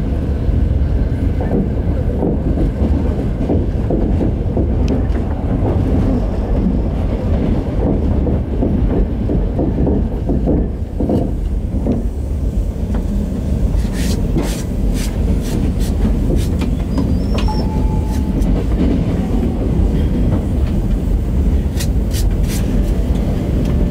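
Inside a moving Trans-Siberian Railway passenger carriage: the steady low rumble of the train running on the track. Sharp clicks and rattles come in from a little past halfway and again near the end.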